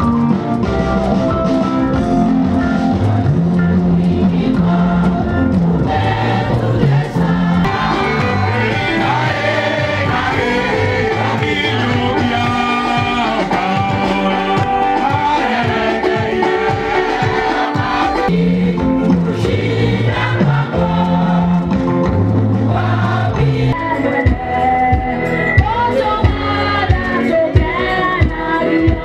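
Women's choir singing a gospel song over an instrumental backing with a stepping bass line.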